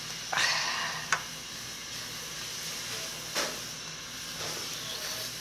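Steady background hiss with a few short eating noises from a bowl of saucy tteokbokki: fork clicks against the plastic bowl and mouth sounds, the loudest about half a second in, with others about a second in and three and a half seconds in.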